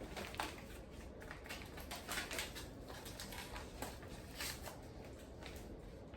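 Soft, irregular clicks and light rustling of kitchen handling as buffalo sauce goes into a bag of raw chicken, over a low steady room hum.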